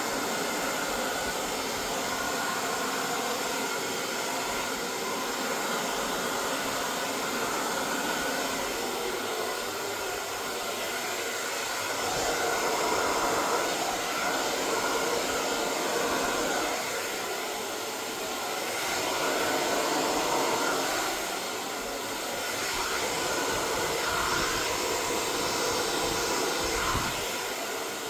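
Hair dryer running steadily, blowing out poured acrylic paint; its sound swells louder and eases back three times.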